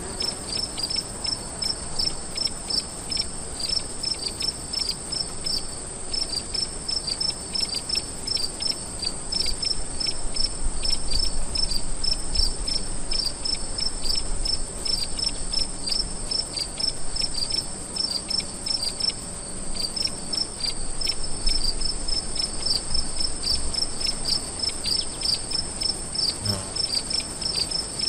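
Crickets chirping: quick repeated chirps over a steady, unbroken high-pitched trill.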